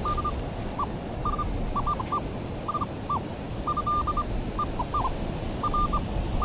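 Minelab Manticore metal detector sounding repeated short, high beeps, singly and in quick clusters, as the coil sweeps over targets, over a steady background rush of surf.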